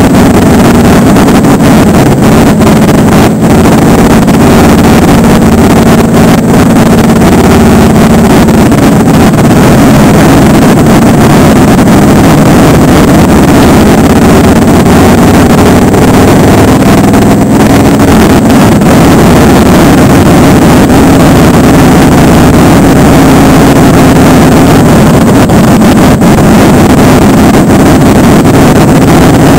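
Motorcycle engine running along at road speed, heard from on the bike, loud and steady with a slight drift in pitch, mixed with wind rushing over the microphone.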